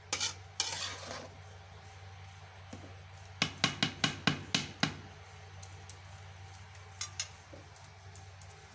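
A long metal spoon scraping and stirring through mango pieces in an aluminium pot, then knocking sharply on the pot about eight times in quick succession, with two more knocks a little later.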